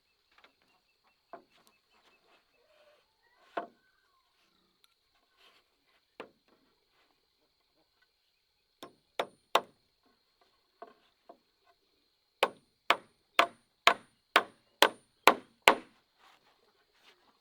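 A tool striking wood: a few scattered blows, a pair, then a steady run of eight strikes about two a second near the end.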